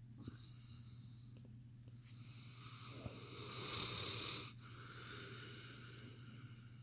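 Bernese Mountain Dog snoring in its sleep: one long snoring breath starts about two seconds in, grows louder and stops suddenly, followed by a softer breath.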